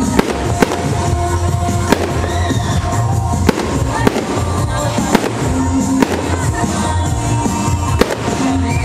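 Aerial fireworks shells bursting overhead, a sharp bang every second or so, with loud music with a heavy bass playing underneath.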